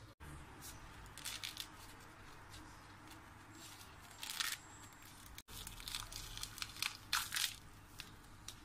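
Hands tearing and crunching fresh produce, in short crisp strokes in small clusters, with two brief sudden dropouts in the sound.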